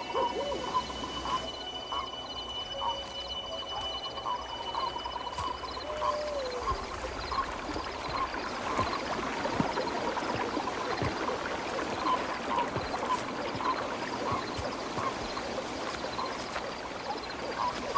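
Nature ambience: a steady wash of water with short chirping calls repeated every second or so. A thin high steady tone runs through the first few seconds.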